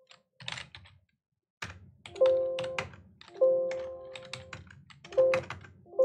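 Computer keyboard typing, with three short ringing chimes from the computer, each fading over about a second; the terminal's bell as tab completion fails to find a single match.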